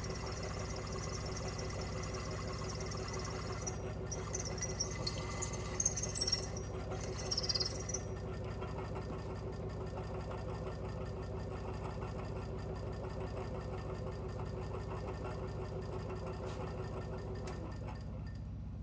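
Milling machine spindle running steadily with a large twist drill, drilling out the old bolts in a cast iron exhaust manifold flange; a scratchy cutting noise from the drill and chips comes between about four and eight seconds in. The spindle hum stops about a second before the end.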